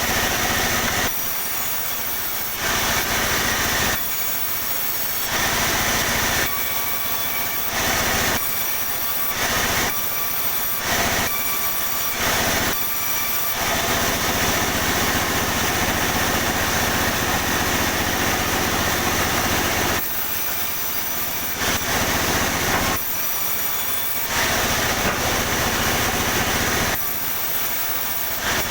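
Sawmill saw cutting pine into boards: a running machine whose sound swings over and over between a loud, high ringing whine while the blade is in the wood and a lower steady hum between cuts, with one longer cut about halfway through.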